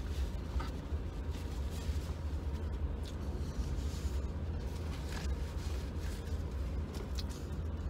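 Steady low engine drone heard inside a car cabin, with a few faint clicks and rustles from a napkin and food containers.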